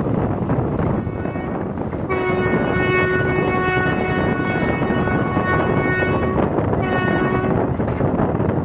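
Train horn sounding over the steady rush of wind and running noise of a moving train: one long blast of about four seconds, then a short blast.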